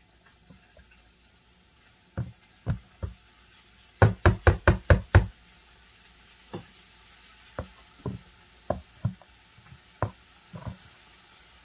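A series of sharp knocks: three single knocks, then a quick run of about six about four seconds in, then more single knocks spaced out toward the end.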